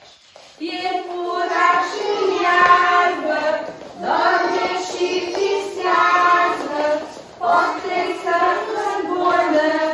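A group of young children singing together with adult women, a circle-game song in unison, starting about half a second in and pausing briefly between phrases.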